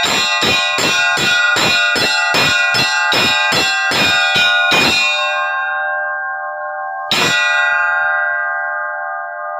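Orthodox church bells rung by hand to call worshippers to a service: quick, even strikes about three a second for some five seconds. They stop, the bells ring on, one more strike comes about seven seconds in, and the bells are left ringing.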